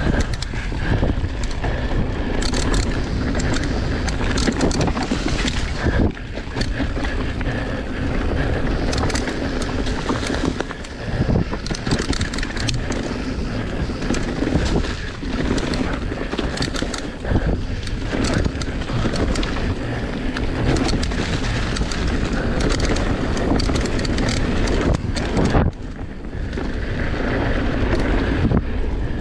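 Electric mountain bike ridden fast down a leaf-covered dirt trail: tyres rolling over leaves and dirt, with wind on the microphone and frequent rattles and knocks from the bike over bumps.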